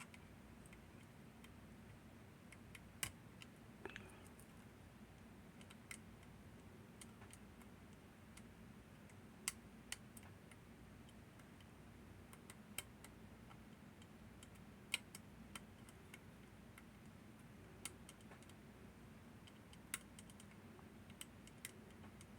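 Faint, scattered clicks of a lever-lock pick and tension tool working the levers of a Northern Telecom NE-22 six-lever lock, about a dozen light ticks at uneven intervals over a low hiss.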